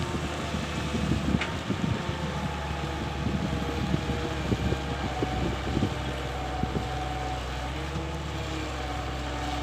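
Diesel engine of a 200 LC tracked excavator running steadily, with wind buffeting the microphone.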